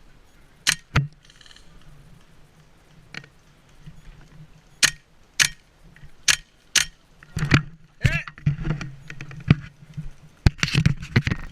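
Single sharp cracks of airsoft guns firing, about ten shots spaced irregularly, with the rattle of gear between them.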